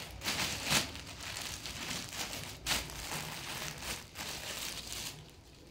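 Crinkling and rustling of folded suit fabric and its packaging being handled, with a louder rustle in the first second and another a little before halfway.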